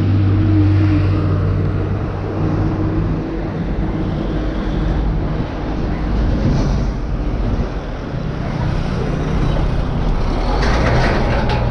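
Road traffic passing close by on a highway, including a large container truck, with a steady low engine hum and the rush of the vehicles going past.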